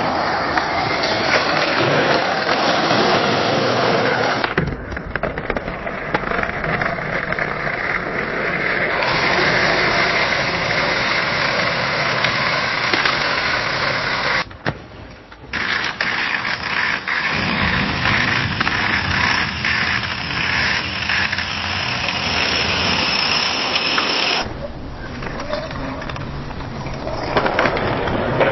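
Skateboard wheels rolling on pavement, a steady gritty rumble. It comes as separate takes that change about every ten seconds, with a short dip in level around a third of the way through and a run of ticks in the middle take.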